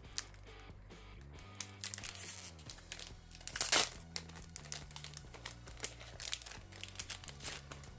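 Foil wrapper of a Pokémon booster pack crinkling as it is handled and torn open, with a louder rip a little under four seconds in, over soft background music.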